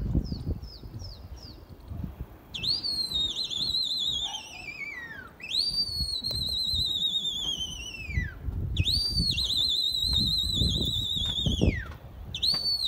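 Loud human whistling to pigeons circling overhead: a few short falling chirps, then three long whistles that each jump up high and glide slowly down with a warble, and a short fourth near the end. Wind rumbles on the microphone throughout.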